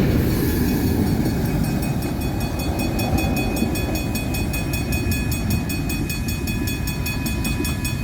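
Empty freight train cars, container flats and grain hoppers, rolling past with a steady rumble and rattle. A fast, evenly repeating high ringing, about five pulses a second, runs over it from about a second in.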